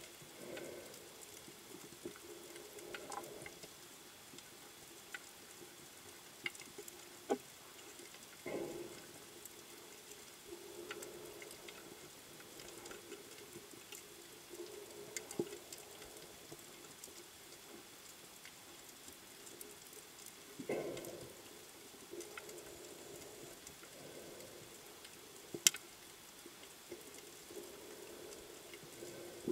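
Underwater sound through a camera housing: a scuba diver's regulator exhaling bursts of bubbles every several seconds, over a faint crackle of scattered clicks.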